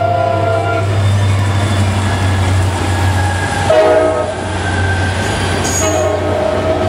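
Diesel freight locomotives, an EMD SD40-2 and SD50-2, passing close by with a steady low engine rumble. The locomotive horn sounds a chord for about the first second, gives a short blast about four seconds in, and sounds again near the end.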